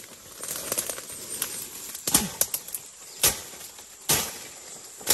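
Leaves and fern fronds rustling and swishing as people push through dense undergrowth. There are several louder swishes of brushed-aside branches from about two seconds in.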